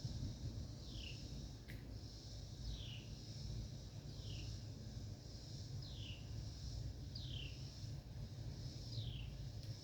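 A bird repeating one short call that sweeps down in pitch, six times, about every one and a half seconds, over a steady high-pitched hiss and a low rumble. A single sharp click sounds about two seconds in.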